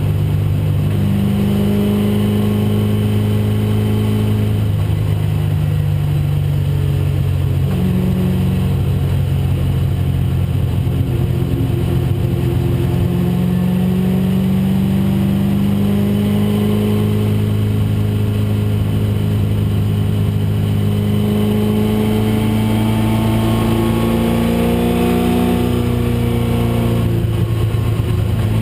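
1996 Ford Mustang race car's engine running hard at racing speed, its note climbing in long pulls and dropping back a few times at gear shifts.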